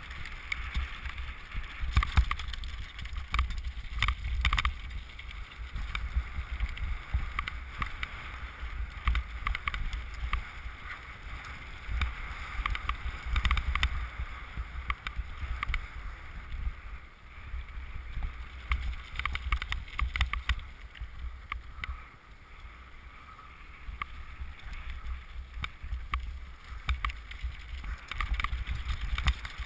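Mountain bike, a 2007 Trek Top Fuel, riding fast down a gravel forest trail, heard through a GoPro in its housing. The tyres rumble steadily over the stony surface, with frequent knocks and rattles from the bike and camera mount and some wind on the microphone. It eases off briefly about three-quarters of the way through.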